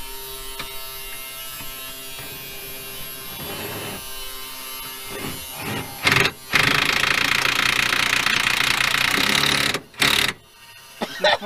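A handheld power tool run on a suspension bolt in loud bursts: a short burst about six seconds in, then a longer run of about three seconds, and a couple of brief bursts near the end, over a faint steady hum.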